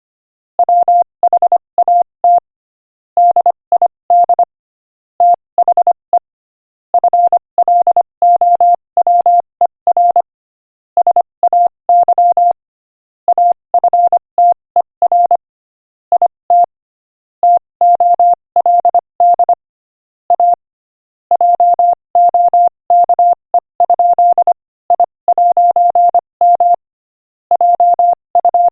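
Morse code sent at 25 words per minute: a single mid-pitched beep tone keyed on and off in quick dots and dashes, grouped into letters and words with short silent gaps between them.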